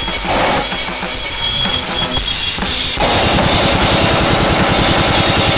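Harsh noise music: a loud wall of distorted electronic noise with thin high whistling tones, cutting abruptly about halfway through to a thicker, denser texture with a fast low stutter.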